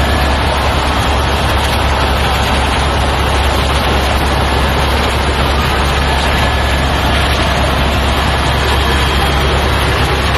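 Steady, loud engine and airframe noise inside the cabin of a small aircraft in flight, an unbroken drone with a deep low rumble.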